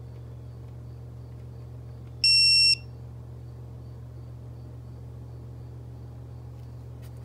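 Digital torque wrench giving one loud, half-second beep as it reaches its 25 newton-metre target on the oil filter housing cap. A steady low hum runs underneath, and there are a couple of clicks near the end.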